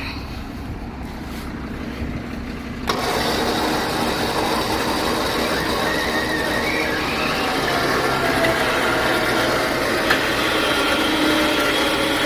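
Grain truck engine running, the sound stepping up suddenly to a louder, steady drone about three seconds in, with pitched tones rising later as it gathers speed.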